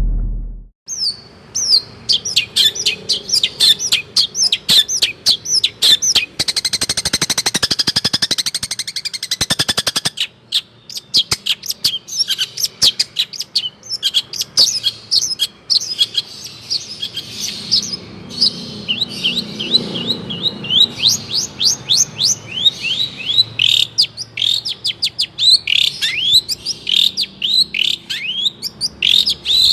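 Long-tailed shrike (cendet) singing without pause: a rapid run of sharp, high chirps and quick downward-sweeping notes, with a dense harsh rattle from about six to ten seconds in.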